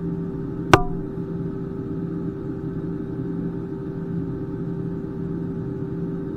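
Steady cabin hum of an Airbus A320, with one steady tone over a lower hum that pulses about once a second. Under a second in, one sharp click with a brief ring.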